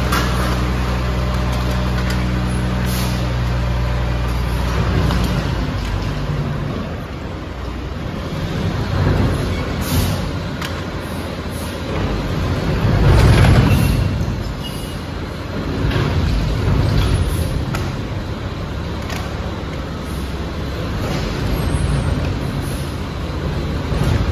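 A garbage truck's engine runs at a steady pitch for about five seconds and then drops away. After that, loose trash slides out of the tipped container and spills onto the concrete floor in uneven, rumbling surges with occasional thuds and clanks, loudest about halfway through.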